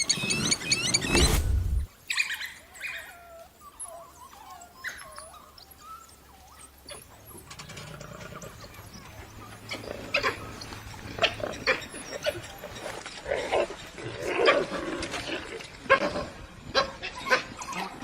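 Pack of wild dogs calling with short high yips and whimpering twitters, sparse at first and more frequent in the second half. A loud stretch of noise in the first two seconds cuts off suddenly.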